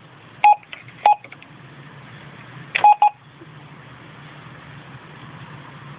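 Keypad beeps from a MYPOL public-transport on-board computer as its keys are pressed: short beeps about half a second and a second in, then a quick pair near three seconds, over a steady low hum.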